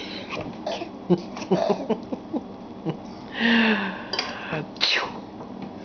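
A young child's short vocal noises and breaths, with a louder breathy burst about three and a half seconds in.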